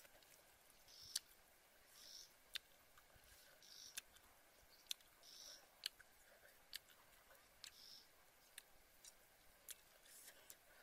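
Faint mouth sounds of eating with the fingers: sharp lip-smacking clicks about once a second, mixed with short soft hisses.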